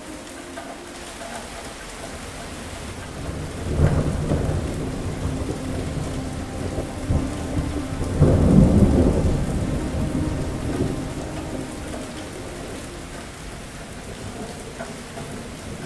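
Steady heavy rain with thunder: a sharp clap about four seconds in rolls into a long rumble that swells to its loudest just past the middle, then fades away over several seconds.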